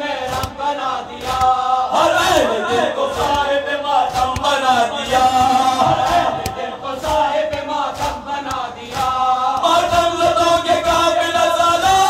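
Group of men chanting a noha, a Shia elegy, in unison through a microphone. Sharp rhythmic slaps of hands beating chests (matam) keep time under the voices.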